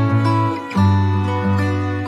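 Instrumental background music: plucked-string notes over held low tones, with a chord change about three-quarters of a second in.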